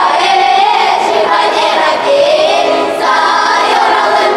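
Children's folk choir singing together, accompanied by a button accordion.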